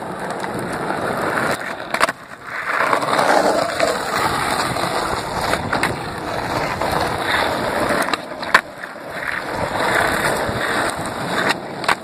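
Skateboard wheels rolling over rough asphalt, rising and falling as the skater pushes and rides, with several sharp clacks of the board popping and hitting the ground during flip-trick attempts.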